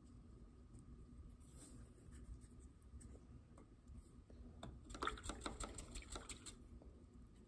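Faint scraping of a wooden brush handle mixing acrylic paint on a paper palette. About five seconds in comes a second and a half of quick clicks and rattles, the loudest part.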